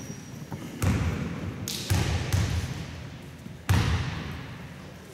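A basketball bounced on a wooden sports-hall floor, four separate slow bounces over a few seconds, each a sharp thud that rings on in the hall's echo. The last bounce is the loudest. This is the free-throw shooter's routine before the shot.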